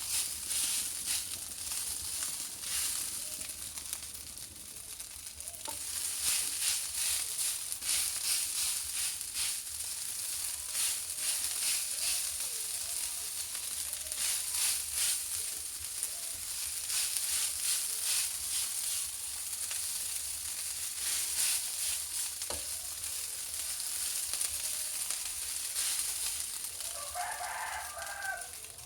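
Cold cooked rice frying in a hot pan: a steady sizzle with repeated taps and scrapes of a spatula stirring it. A rooster crows once near the end.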